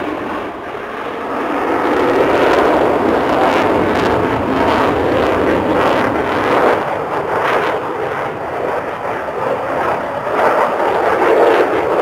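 Fighter jet flying past, its engine noise a loud, steady roar with a crackling edge. The noise dips briefly near the start and then swells and stays loud.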